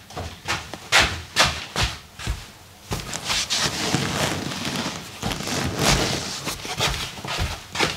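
Slippered footsteps on the floor, about two a second, then rustling and shuffling of clothes against a leather sofa as someone sits down, from about three seconds in.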